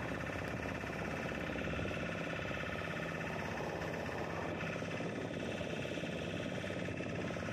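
A small boat's motor running steadily as the boat moves across open water, an even drone with no change in pitch.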